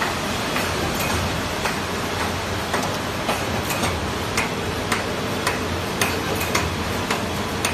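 Automatic sheet-fed varnishing machine running, with a steady low hum and a sharp click repeating evenly nearly twice a second.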